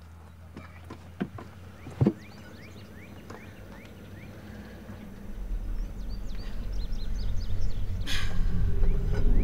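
Birds chirping, with two sharp knocks about one and two seconds in. From about halfway through, the low rumble of an approaching train builds steadily, with a short hiss near the end.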